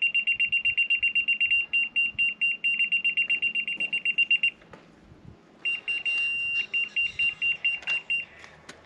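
Laser level receiver on a grade rod beeping fast and high-pitched, about seven beeps a second. After a pause it beeps again, breaking briefly into a steady tone, the receiver's signal that the rod is on grade, then more fast beeps.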